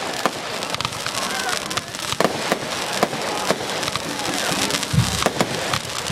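Fireworks going off: a steady string of sharp bangs and crackles, two or three a second.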